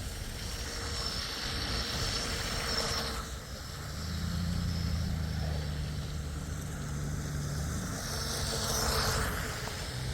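Electric outboard on an RC tunnel hull boat running out on a pond, heard as a high whine that fades after about three seconds and comes back near the end, with a low hum in between.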